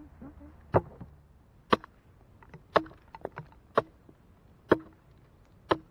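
Hatchet chopping into a dead log: six sharp strikes about a second apart, with a few lighter knocks in between.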